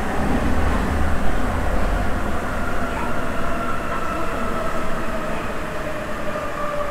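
Sapporo Municipal Subway 9000-series rubber-tyred train running between stations, heard from inside the car: a steady low rumble with a motor whine that falls slightly in pitch toward the end.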